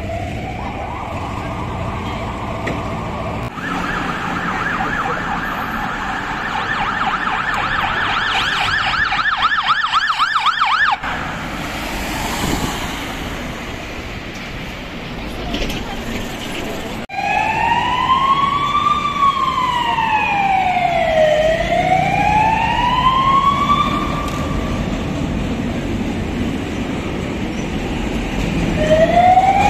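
Emergency vehicle sirens in city traffic. A steady siren tone gives way to a blood-transport vehicle's siren in a fast warble that quickens and then cuts off suddenly. After a few seconds of plain traffic noise, an ambulance siren's slow wail rises and falls twice and starts rising again near the end.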